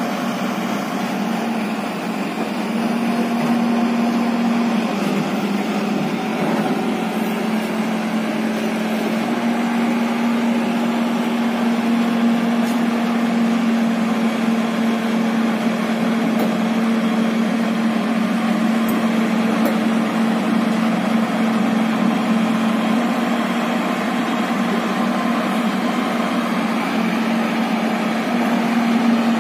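JCB JS140 excavator's diesel engine running steadily under load, with a steady low hum, as the machine works its boom and hydraulics to climb its tracks onto a flatbed truck.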